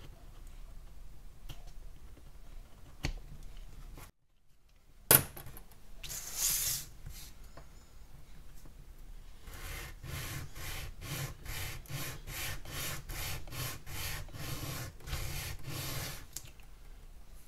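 Small square-to-octagonal wooden stick rubbed back and forth on a sheet of sandpaper, about two strokes a second, sanding its corners down to an octagonal section. Before that come faint scrapes of a craft knife shaving the corners, and one sharp knock about five seconds in.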